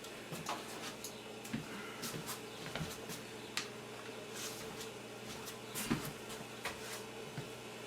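Scattered light clicks and knocks of dishes and serving utensils being handled while food is plated, over a faint steady hum.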